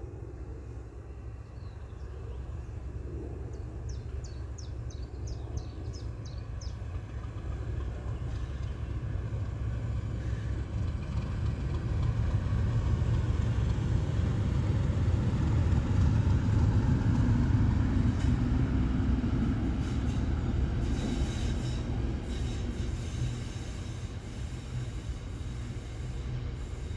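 Class 37 diesel locomotive with its English Electric V12 engine, hauling a long train of box wagons past: a low rumble that builds to its loudest a little past the middle and then fades away.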